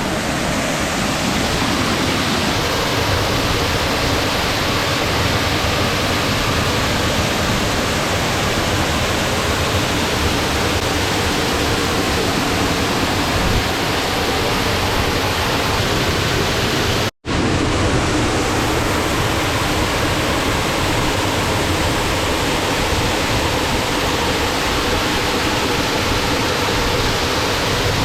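Twin Falls waterfall rushing, a loud, steady roar of falling water that drops out for an instant about two-thirds of the way through.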